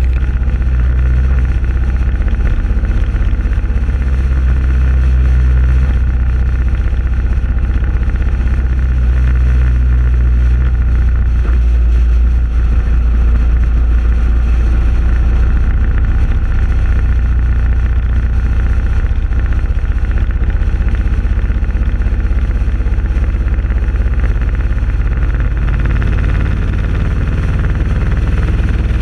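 Motorcycle engine running steadily at cruising speed, a constant low rumble mixed with wind and road noise.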